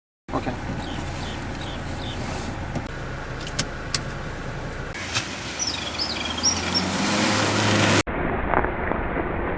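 Road vehicle driving, with steady road and engine noise that grows louder, scattered clicks and an abrupt cut to a duller-sounding recording about eight seconds in.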